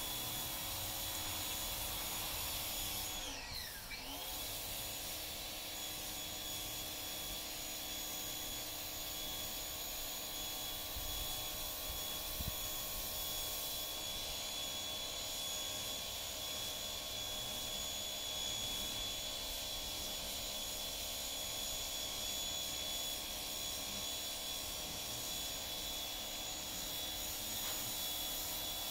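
Steady drone of a running motor or machine, a whine of several steady tones that briefly drops in pitch and climbs back about three to four seconds in, then holds steady.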